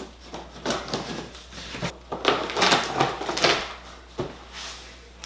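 Cardboard box flaps being pulled open by hand: a run of irregular scrapes, rustles and short knocks of cardboard.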